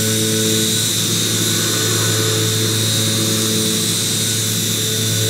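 CNC machining centre milling a pocket in hardened C45 steel (42 HRC) with a 12 mm end mill on an iMachining toolpath. The spindle and cut make a steady hum with a high whine, level with no interruption.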